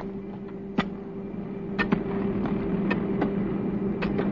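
An engine or machine running with a steady low hum, with irregular clicks and knocks over it.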